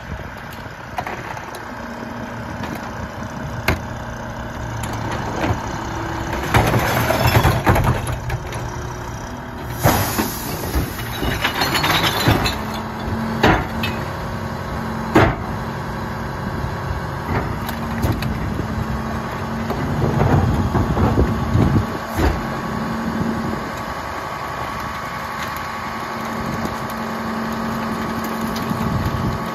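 Mack LEU rear-loader garbage truck running at the curb, its McNeilus packer hydraulics adding a steady whine. Recyclables are tipped by hand into the hopper: several loud clattering crashes and sharp bangs of the cart and loose items against the hopper.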